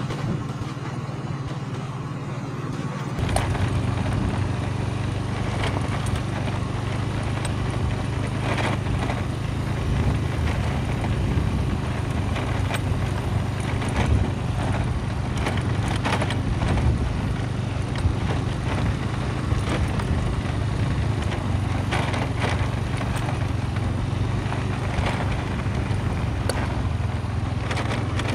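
Motorcycle engine running steadily at riding speed on a bumpy dirt track, with scattered knocks and rattles from the bumps. A deeper rumble joins about three seconds in.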